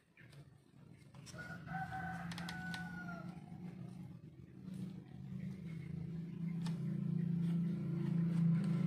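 A rooster crows once in the background, one long call of about two seconds starting about a second in. Under it runs a low steady hum that grows louder toward the end, with a few light clicks from handling at the bench.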